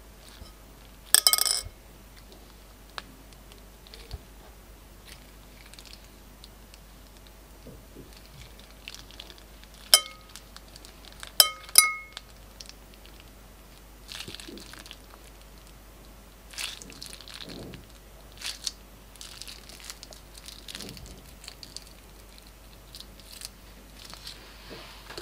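Blue glitter slime squeezed out of a plastic piping bag onto a clear plate: soft squelches and crinkling of the bag. The loudest sounds are sharp, briefly ringing clicks of hard plastic gem charms landing on the plate, one cluster about a second in and three more around ten to twelve seconds.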